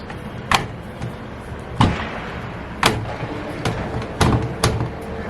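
Hotpoint washing machine starting up after its buttons are pressed: six sharp, irregular knocks and thuds. A steady hum sets in near the end.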